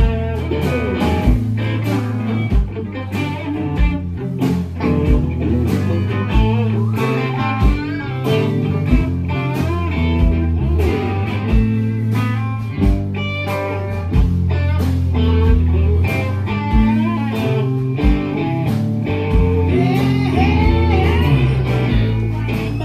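Live band playing through amplifiers: electric guitars, electric bass and a drum kit, with a steady drum beat.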